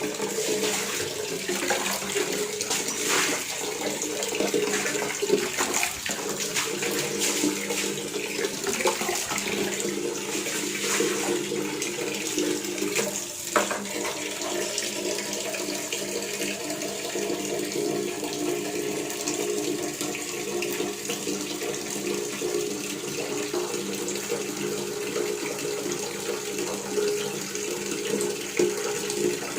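Water tap running steadily, a continuous stream of water pouring and splashing. There is one brief sharper sound about halfway through.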